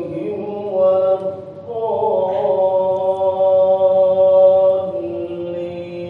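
A man's voice reciting the Quran aloud in slow, melodic chant, holding long notes that glide between pitches, as an imam leads congregational prayer.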